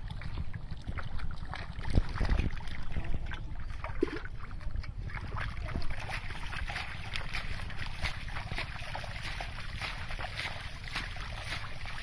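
Hands scooping and sloshing through shallow muddy water, with many short irregular splashes, the strongest about two seconds in. A steady low wind rumble on the microphone runs underneath.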